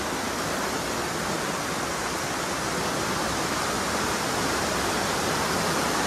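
Waterfall running in high flow over rock ledges: a steady, unbroken rush of white water.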